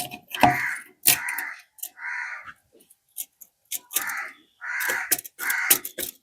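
Harsh bird calls, six of them in two groups of three, each about half a second long, with a few light clicks between them.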